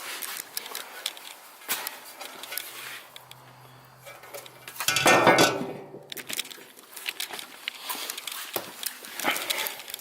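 Hands handling parts and tools: scattered light clicks, clinks and rustling, with one louder scraping rustle about five seconds in.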